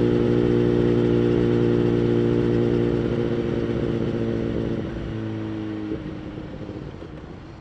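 2011 BMW S1000RR inline-four with a Bodis exhaust holding a steady note. About five seconds in the note changes, and a second later it stops, as the whole sound fades away.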